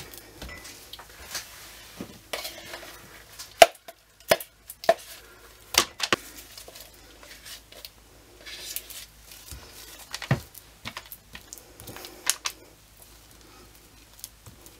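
Metal spoon clinking and scraping against a plastic cup and a paper-lined mold as thick, partly set cold process soap batter is scooped and dabbed in. The sound is a scatter of sharp, irregular taps over soft scraping.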